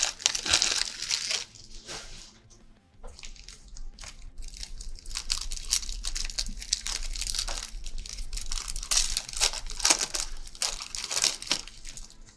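A Panini Recon basketball card pack's wrapper being torn open and crinkled by hand, in bursts of crackling through most of the stretch.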